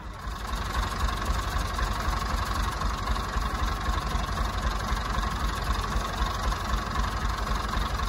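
Tractor engine running steadily, with a broad mechanical hiss over a low rumble; the noise steps up in level about half a second in.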